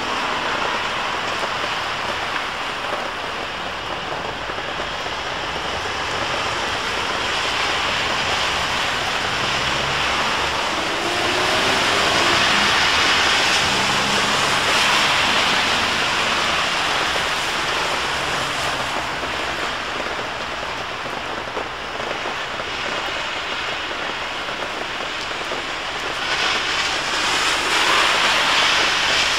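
Heavy rain and road traffic on a soaked street: a steady wash of rain with the hiss of tyres on the wet road. It swells louder about twelve seconds in and again near the end as vehicles pass.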